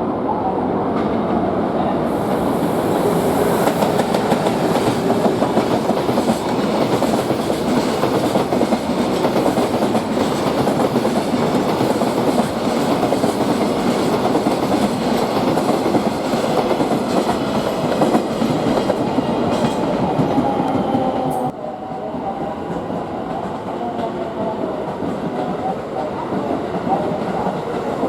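Freight train passing at speed, a loose string of wagons running over the rails with a steady heavy rumble. About three-quarters of the way through the sound cuts abruptly to another, somewhat quieter passing freight train.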